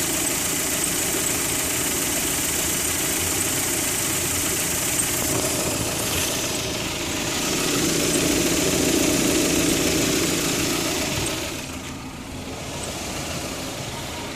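Car engine idling steadily, heard close at the front of the engine with its belt-driven pulleys turning; the owner is chasing an intermittent squeak in it that he wonders may come from the water pump. It grows a little louder for a few seconds past the middle, then drops in level about twelve seconds in.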